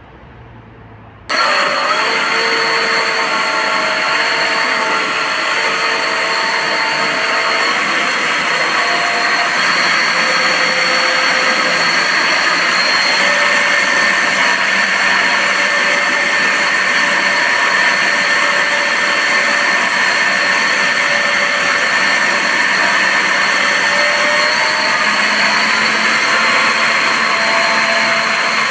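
80 mm water-jet thruster running: its motor gives a steady high whine over the loud rush and splash of the water jet churning out of the nozzle. It starts suddenly about a second in, and some lower tones in the whine shift in pitch now and then.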